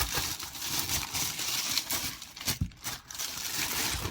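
Packaging crinkling and rustling as it is handled, with a sharp knock about two and a half seconds in.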